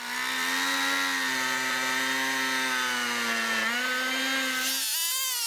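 Two-stroke chainsaw running at high revs as it cuts through pine boards, its steady pitch shifting a little as the load changes. Near the end it gives way to a wavering, pitched sound, the start of music.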